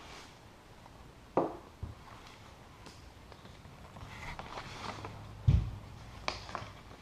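Scattered handling noises: small taps, rustles and clicks, with a sharp knock about a second and a half in and a deeper, louder thump about five and a half seconds in.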